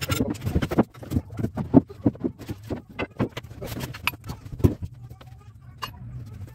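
Irregular knocking, clattering and scraping of plywood sheets and boards being picked up and moved on a wooden plank floor, with two louder thumps, about two seconds in and just before five seconds.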